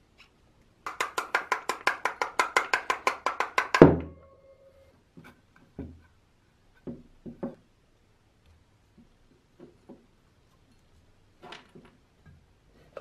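A fast, even run of sharp clicks, about seven a second for three seconds, from work on the old fan's parts. It ends in a loud knock and a short ring. After that come scattered light taps and knocks of parts being handled.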